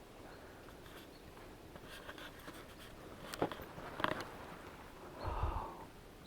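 Faint scratching and rustling of dry sticks and forest floor debris, with a few sharp snaps a little past halfway and a soft rustle near the end.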